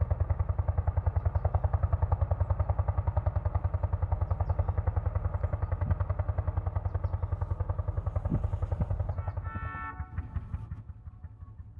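Lanz Bulldog tractor's single-cylinder two-stroke hot-bulb engine running under way with its rapid, even pulsing beat. It turns fainter about ten seconds in.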